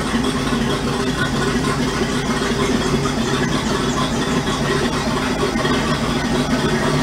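A motor or engine running steadily, a constant low hum at an even pitch.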